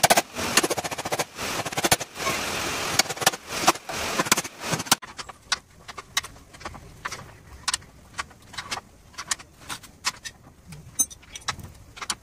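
Hammer blows on the car's front-end sheet metal, dense metal banging for about five seconds. After that, quieter scattered metallic clicks and clinks of hand tools as the mechanic works at the front cross member's fixings.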